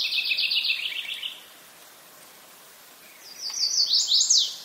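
A songbird singing two phrases: at the start, a rapid run of short notes that step down in pitch for over a second, and near the end a quicker run of notes closing with a few loud, sharply falling notes.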